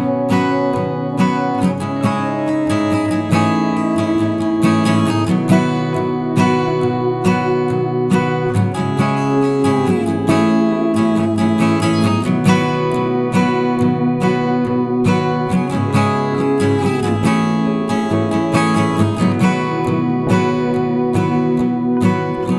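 Background music: steady acoustic guitar strumming and picking.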